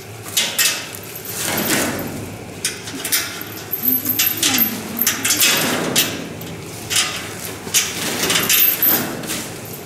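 Leafy tree branches rustling and a chain clinking against the wire mesh as the branches are fastened to a giraffe enclosure's mesh, in a string of short, irregular rustles and clinks.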